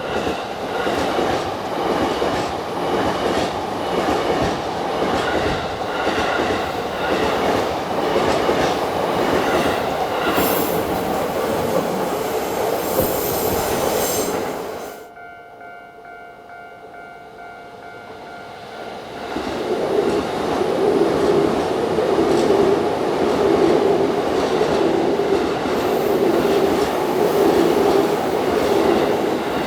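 Two trains pass over a level crossing one after the other, wheels clattering on the rails. The first runs by for about fifteen seconds and stops abruptly. After a lull of a few seconds the second comes through, louder. The crossing's warning bell rings steadily underneath and is heard plainly in the lull.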